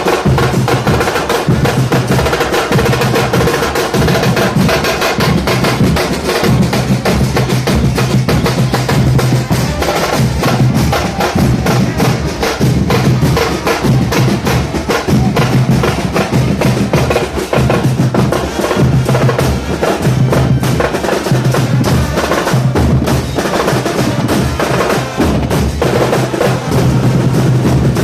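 Argentine football supporters' drum section playing: bombos (large bass drums) and redoblantes (snare drums) beating a loud, continuous, driving rhythm with rolls on the snares.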